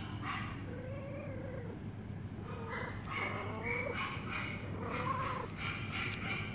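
Calico cat meowing several times, short rising-and-falling calls, over a steady low hum.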